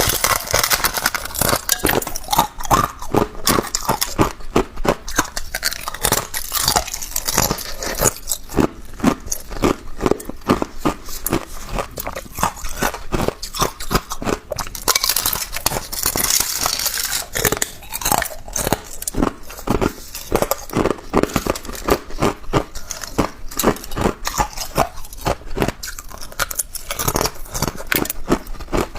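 A person chewing and crunching ice: rapid, continuous crunches of ice being crushed between the teeth, close to the microphone.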